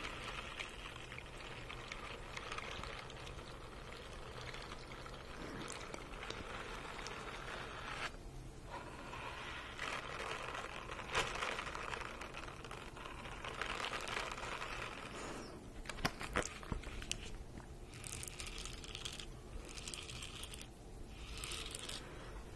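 Stiff-bristled brush scrubbing over a rubber basketball: a steady scratchy rasp, with a couple of short pauses and choppier, stop-start strokes near the end.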